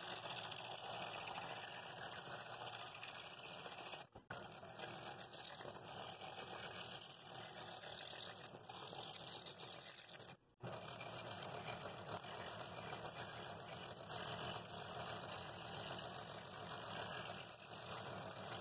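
Scroll saw with a fine No. 1 blade running and cutting through thin quarter-inch wood, a steady mechanical chatter that breaks off briefly twice.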